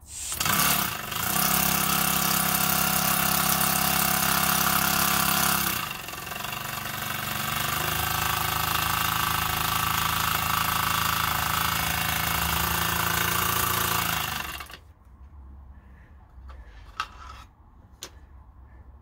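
Mamod-style model steam engine running fast under steam with a steady buzz and hiss; its pitch shifts about six seconds in and it stops suddenly about fifteen seconds in. A couple of light clicks follow near the end.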